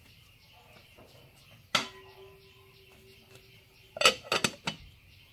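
Metal pot and lid clanking on an iron trivet over a wood fire. One sharp clank rings on for a couple of seconds, then a quick run of clanks comes as the lid is set on the pot.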